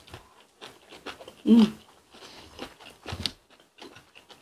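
Close-miked eating sounds: wet chewing of soft braised cutlassfish and radish, with scattered small clicks of chopsticks and mouth noises. A brief hummed 'mm' about one and a half seconds in and a soft knock about three seconds in.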